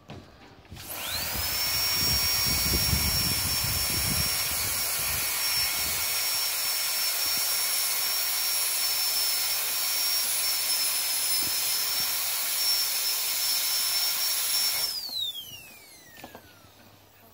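Disposable high-speed dental handpiece spinning up about a second in with a quick rising whine over a hiss of air. It runs at a steady high whine for about fourteen seconds, then spins down in a falling whine as it is let go.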